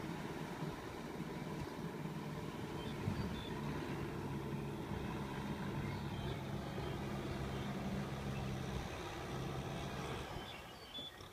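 Tractor engine running steadily at a low, even pitch that shifts slightly a couple of times, then fades somewhat near the end.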